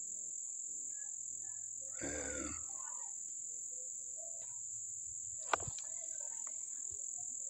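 Crickets trilling in a steady, high continuous tone. About two seconds in there is a brief low murmur of a man's voice, and a little after the middle a single sharp click.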